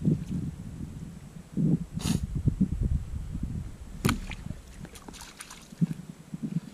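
Wet gill net being hauled out of a hole in the ice, with water splashing and dripping off it. About four seconds in, a fish tossed out of the net lands on the ice with a sharp slap.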